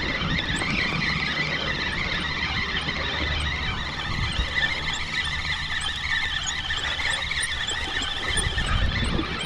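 Spinning reel's drag squealing steadily while a hooked fish pulls line against it, its pitch wavering.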